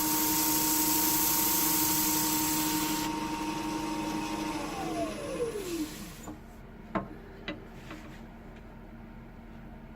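An electric power tool's motor running steadily under a loud high hiss that stops about three seconds in; the motor is then switched off and winds down, its pitch falling away. A few light knocks follow.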